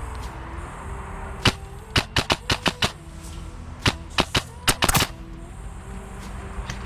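Airsoft guns firing sharp single shots: one shot about a second and a half in, then two quick strings of six or seven shots each, about a second apart.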